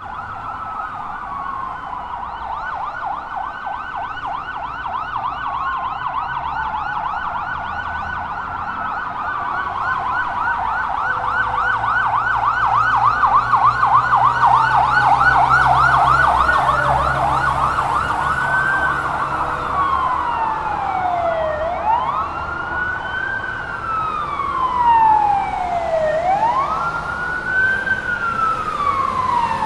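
Several fire truck sirens sounding together in slow rising-and-falling wails, with a fast yelp in the middle, growing louder toward the middle. A low engine rumble runs underneath.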